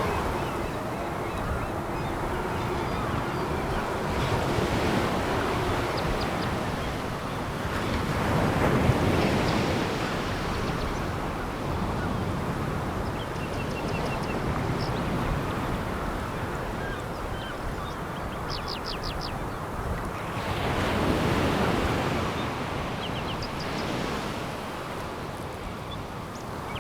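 Sea waves breaking and washing over a pebble beach, swelling and receding about three times, with faint high clicks among the stones.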